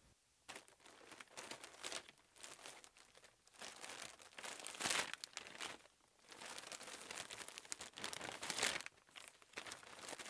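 Plastic wrapping of a packaged shirt crinkling faintly and irregularly as it is handled, with louder crackles about halfway through and again near the end.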